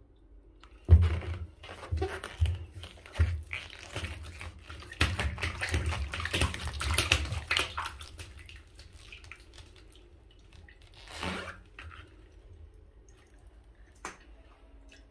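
Hands squeezing and pressing a large water-filled balloon packed with Orbeez water beads: wet, rubbery squishing as the water and beads shift inside. A few knocks start about a second in, a longer dense stretch of squishing follows in the middle, then it quietens to one short swell and a single click near the end.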